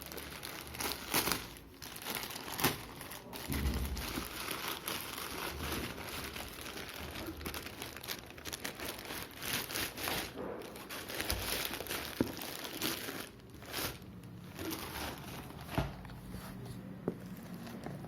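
Packaging of a VR headset box being handled and unwrapped: steady crinkling and rustling with many sharp crackles and clicks scattered throughout.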